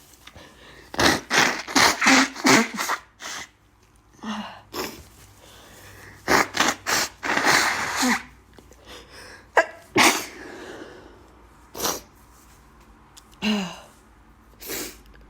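A woman sneezing over and over from allergies: a quick run of sneezes a second or so in, another run a few seconds later, then single sneezes spaced a second or two apart, some ending in a falling voiced 'choo'.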